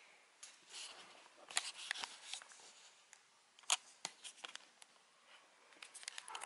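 Scattered clicks and rustles from a handheld camera being moved and handled, with sharp clicks about a second and a half in and near four seconds, and a quick run of clicks near the end.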